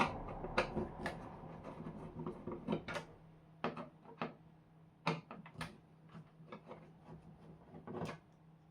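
Irregular clicks and light knocks of hands working on the TV with tools and plastic parts, over a faint steady hum.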